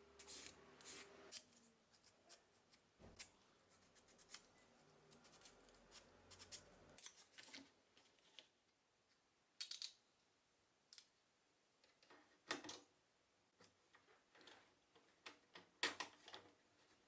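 Faint hand work in a quiet room: scattered light clicks and short scraping strokes, with a few sharper snips about ten, twelve and sixteen seconds in.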